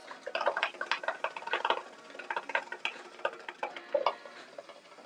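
Hookah water bubbling as smoke is drawn through the hoses: a rapid, irregular gurgle of small pops.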